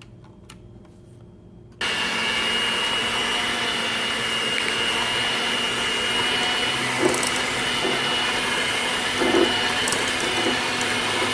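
Electric mixer switched on about two seconds in and running steadily at medium-high speed with a high whine, beating cream cheese in a mixing bowl. A few brief knocks sound during the run.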